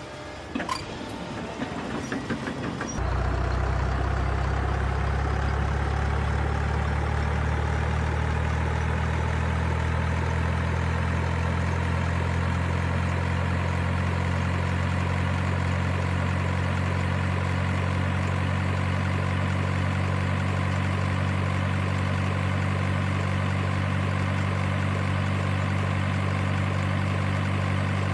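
Engine sound of an RC construction vehicle: a few clicks, then a low engine drone that starts up about three seconds in and runs steadily at idle, with a fainter whine slowly rising in pitch.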